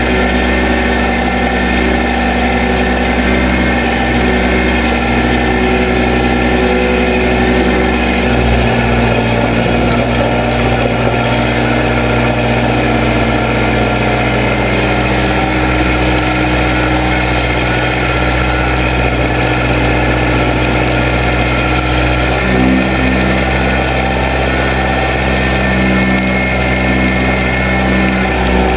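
Case 580B backhoe engine running steadily, its pitch shifting several times, about 8, 13 and 22 seconds in.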